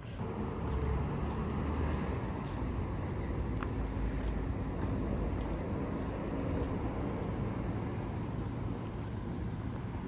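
Steady low rumble of vehicle noise.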